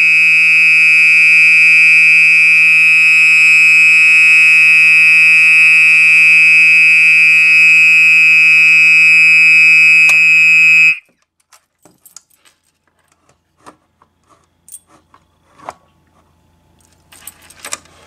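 Older Gentex SHG horn strobe sounding a loud, steady, continuous high-pitched horn tone, set off by a pull station. It cuts off abruptly about 11 seconds in, followed by faint clicks and jingling keys as the pull station is reset.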